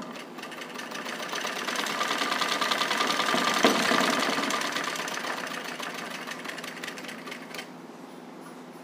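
Radhu sewing machine running, its needle stitching through fabric in a rapid, even rhythm of ticks. It speeds up and grows louder over the first few seconds, then slows and stops a little before the end.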